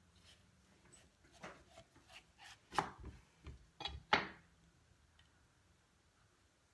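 Chef's knife cutting through a cantaloupe on a wooden cutting board: a run of short crunching cuts and knocks, the two sharpest about three and four seconds in.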